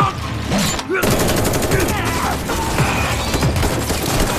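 Rapid automatic gunfire, a dense continuous burst starting about a second in, over a film's music score.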